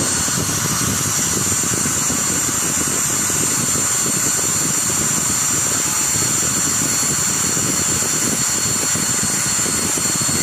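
A machine running steadily, with a constant high whine over a rough rumble that does not change in pitch or level.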